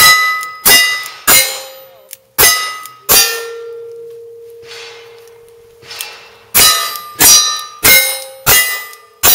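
Ten revolver shots, in two strings of five about two-thirds of a second apart with a pause of about three seconds between. Each shot is followed by the ringing of a struck steel target plate, and one ring hangs on for several seconds. Every target is hit, a clean run.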